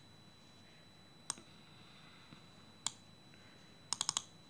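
Sharp clicks of taps on a phone's touchscreen. One comes about a second in and another just before three seconds, then a quick run of four or five near the end, over a faint steady hiss.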